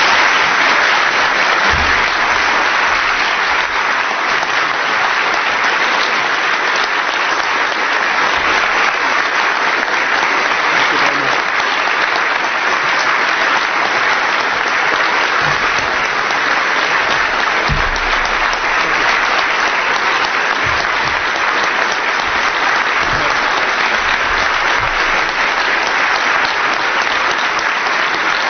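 A large audience applauding steadily and at length, a sustained ovation greeting a speaker who has just been introduced.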